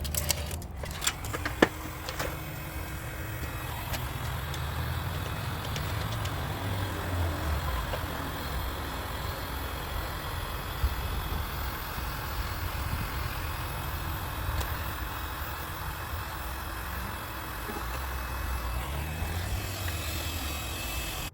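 A motor vehicle engine running steadily with a low rumble, with a few sharp clicks in the first two seconds and one about halfway through.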